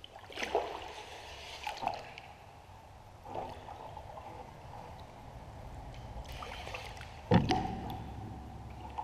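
Several canoe paddle strokes splashing and dripping inside a corrugated steel culvert. A sharp knock about seven seconds in is the loudest sound.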